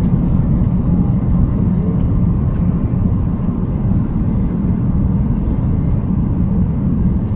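Steady low rumble of an airliner's cabin noise, the engines and airflow heard from a passenger seat inside the cabin.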